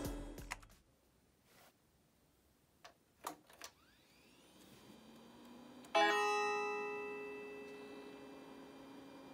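NEC PC-9821Cx computer starting up. A few clicks come first, then a rising whine as it powers up that settles into a steady hum. About six seconds in a bright startup tone sounds suddenly and fades over a couple of seconds.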